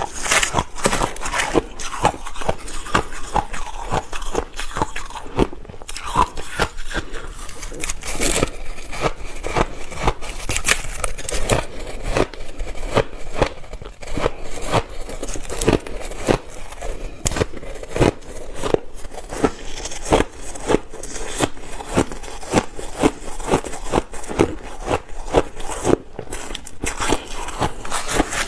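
Close-up crunching of ice being bitten and chewed: a dense run of crackles and crunches, with a sharper crunch every second or so.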